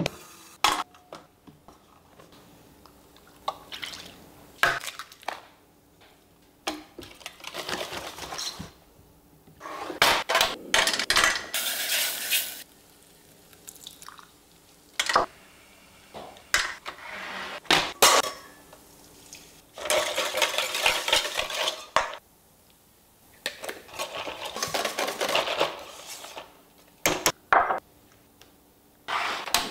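Kitchen utensils at work in bowls and pans: several stretches of brisk scraping and clinking of a whisk against mixing bowls, with sharp clinks of metal and ceramic between them.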